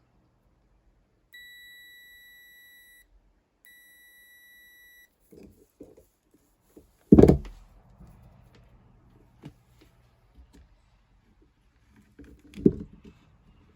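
Tumble dryer's control-panel buzzer sounding two long beeps of about a second and a half each. A heavy thump follows about seven seconds in, with a few light clicks after it and another thump near the end.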